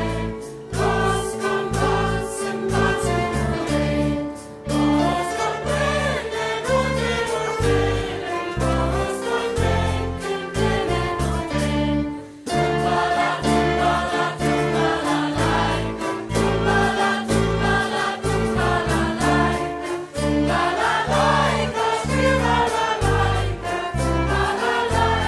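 A school choir and band performing the song live: many voices singing together over a bass line and other instruments, with two brief breaks, about half a second in and about twelve seconds in.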